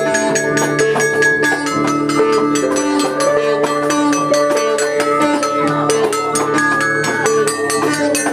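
An informal live jam of sitar, guitar, melodica and hand percussion: long held notes over a quick, steady ticking beat.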